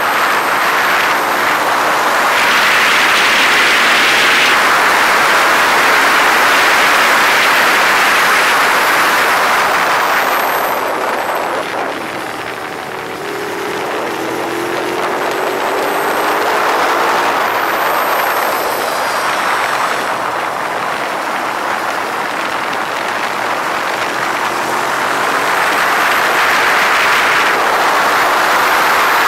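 Ducati 848's L-twin engine running hard at speed, heard from on board under heavy wind rush. About twelve seconds in the sound drops off briefly, then the engine note climbs again as the bike accelerates.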